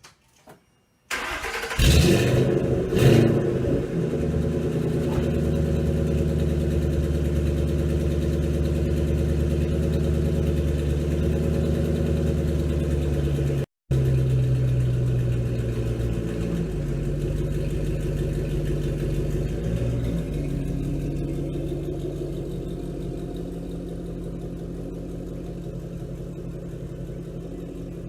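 Ford Mustang with a straight-piped exhaust, mufflers removed, starting up: the engine catches about a second in with two quick revs, then settles into a steady idle that slowly gets quieter toward the end, with a brief break in the sound midway.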